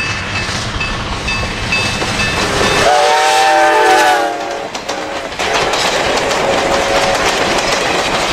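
Passenger train coaches rolling past with wheels clattering over the rails. About three seconds in, a train horn sounds one chord for about a second and a half, then the rolling noise comes back.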